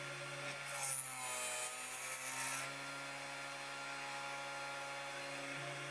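Spindle motor of a 3018 Pro desktop CNC running with a steady whine while its 1 mm drill bit bores into a copper-clad circuit board. From about a second in, a noisy cutting sound lasts a little under two seconds, and the motor's pitch dips under the load and then recovers. After that the steady whine continues alone.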